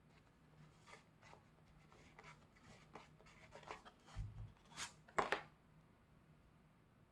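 Hands handling an album's paper and card packaging: a run of soft scratchy rubbing and sliding strokes, a dull low thump about four seconds in, then two louder sharp scrapes just after five seconds.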